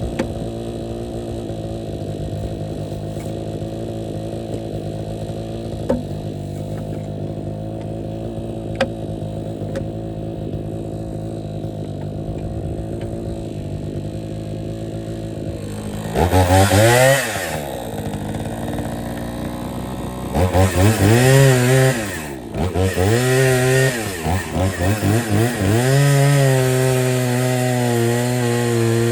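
Two-stroke gas Craftsman chainsaw idling steadily, then revved up about sixteen seconds in and cutting firewood logs, its engine speed dipping and recovering several times under load before running steadily at high speed.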